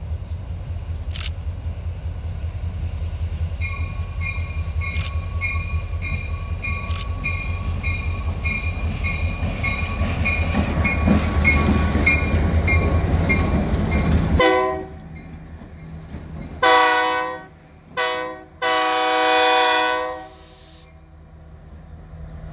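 Diesel locomotives running light, led by an EMD SD40-2 with its 16-cylinder 645 engine, approaching and passing close by. The heavy engine rumble grows louder while the locomotive bell rings about twice a second. Near the end a locomotive horn sounds three blasts, two shorter ones and then a long one.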